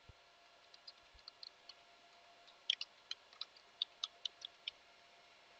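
Faint computer keyboard keystrokes: a run of irregular clicks, quickening in the second half, as an email address is typed in.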